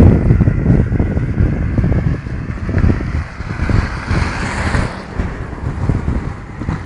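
Wind buffeting a phone's microphone outdoors: a loud, uneven low rumble in gusts, with a brief rise in hiss about four seconds in.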